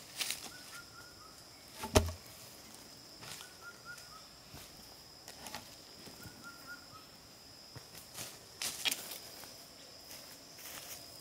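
A heavy green log dropped onto the ground with one loud thud about two seconds in, with rustling steps through dry leaf litter before and after. Insects keep up a steady high drone, and a bird calls in short runs of quick chirps.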